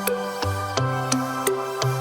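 Background music: a calm electronic track with stepping synth notes and a steady light beat.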